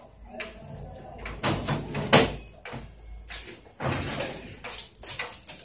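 Plastic front cover of a Sharp AR-6020 series copier being pushed shut: a string of clunks and knocks, the loudest about two seconds in.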